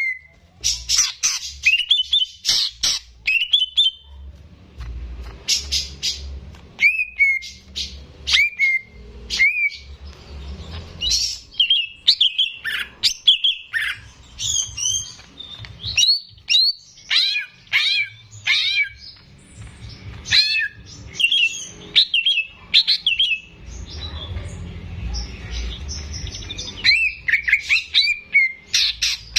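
A cucak ijo (green leafbird) singing hard: a fast, near-continuous string of sharp chirps, slurred whistles and rapid trills with only short pauses.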